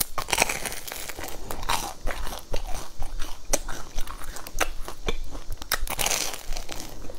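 Bites and chewing through the crisp crust of a deep-fried, breadcrumb-coated red bean paste bun, crunching in a dense, irregular run of sharp crackles.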